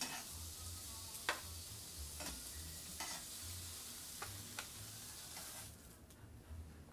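Eggplant slices sizzling in hot olive oil in a frying pan, with several sharp clacks of metal tongs against the pan as slices are picked out. The sizzling fades about six seconds in.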